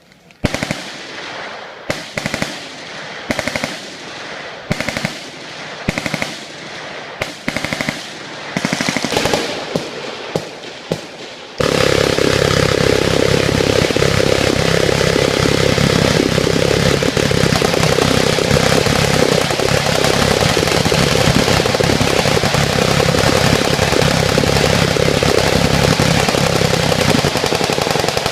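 Machine-gun fire: scattered single shots and short bursts at first, then about twelve seconds in it turns into a dense, unbroken wall of automatic fire that runs on without a pause.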